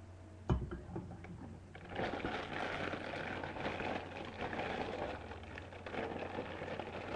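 Cardboard cereal box being handled and opened: a single knock about half a second in, then several seconds of crackling, rustling cardboard and packaging.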